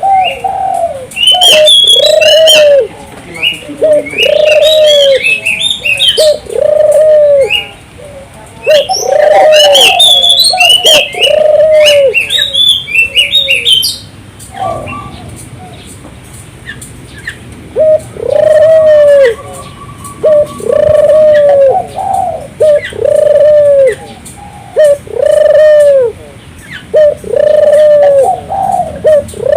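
Puter dove (Barbary dove) cooing over and over, one arched coo about every second, in two long runs with a short pause in the middle. Higher, quick chirps sound between and over the coos.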